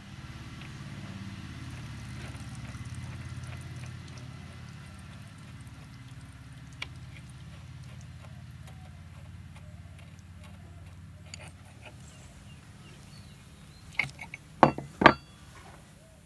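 Metal parts of an old bottle-type hydraulic jack being handled: a few sharp metal clicks and knocks near the end, over a low steady hum in the background that fades out.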